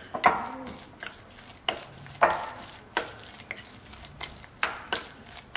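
A metal spoon stirring thick semolina and curd batter in a glass bowl: wet scraping, with irregular clinks as the spoon strikes the glass.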